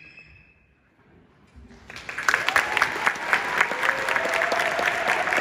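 The last note of a concert band fades into a brief hush, then an audience breaks into applause about two seconds in, with shouted cheers over the clapping.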